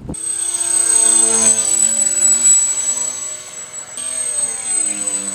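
Art-Tech Wing Dragon RC plane's twin electric motors and propellers running in flight: a buzzing drone whose pitch drifts slowly as the plane moves, under a steady high whine. The sound changes abruptly about four seconds in.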